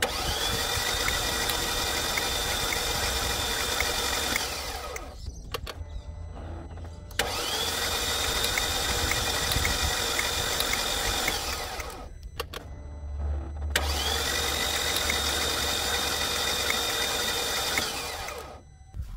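Mercedes M113 V8 being cranked over by its starter three times, about four to five seconds each, with a steady high starter whine that rises as each crank begins. With half the spark plugs out and the fuel pump fuse pulled, it turns over without firing: cranking to push water out of the cylinders after a suspected hydrolock.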